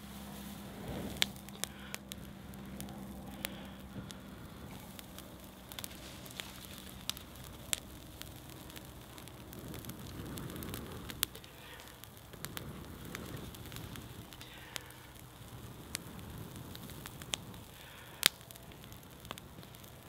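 A dried-bracken tinder bundle with a cramp ball fungus ember inside catching fire and crackling, with scattered sharp pops, while a man blows long breaths into it to bring it to flame.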